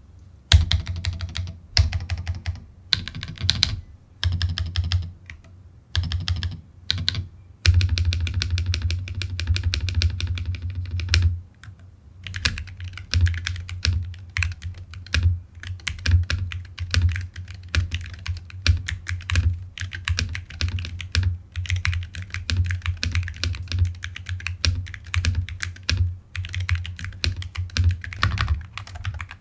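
Typing sound test on a Mchose ACE 60 Hall effect magnetic-switch keyboard: rapid keystrokes, in short bursts with brief pauses over the first dozen seconds, then fast and nearly continuous.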